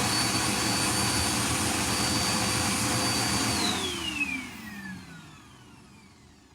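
Dirt Devil Endura Dynamite bagless upright vacuum cleaner's motor running with a steady high whine. It is switched off about three and a half seconds in, and the whine falls in pitch and fades as the motor spins down.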